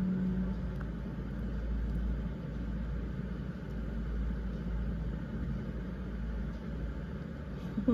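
Steady low rumble of background noise, with a short rising pitched sound at the very end.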